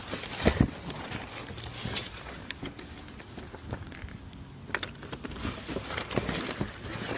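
Plastic bottles and packaging being handled: scattered short clicks and knocks, the loudest about half a second in, over a steady hiss.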